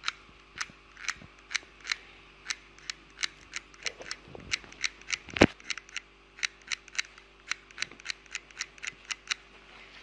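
Utility-knife blade scraping the edge contacts of a small dishwasher circuit board in short, quick strokes, about three a second, one much louder about five and a half seconds in. The contacts are being scraped clean because a bad contact is suspected.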